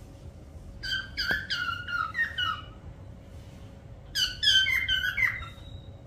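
Parrot whistling in two quick runs of short, high chirping notes, the second run about three seconds after the first.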